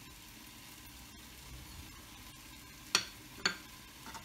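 Two sharp clicks half a second apart as a ceramic saucer, just emptied of cumin seeds into a steel mixer jar, is knocked and set down on a stone counter, over a faint steady hiss.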